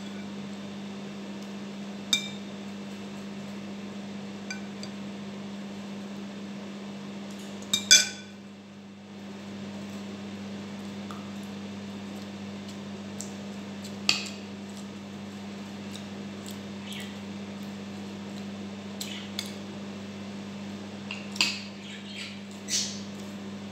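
Metal spoon and fork clinking against ceramic bowls and a plate while eating, in scattered sharp clinks, the loudest about a third of the way in and a cluster near the end. A steady low hum runs underneath.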